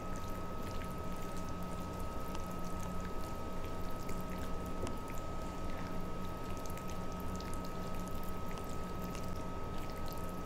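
Bare hands squelching and squishing through raw chicken pieces in a thick yogurt and spice marinade in a glass bowl, a continuous wet mixing sound made of many small ticks, over a steady background hum.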